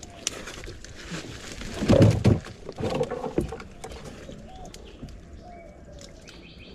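Mangrove branches and leaves rustling and snapping as a hand pushes through them at the side of a small boat, with knocks against the boat's hull. It is loudest about two seconds in and again around three seconds.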